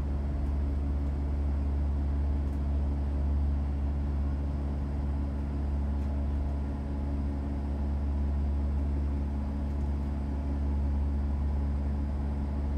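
Airport apron bus cabin: the engine and drivetrain give a steady low drone, mixed with road noise, as the bus drives.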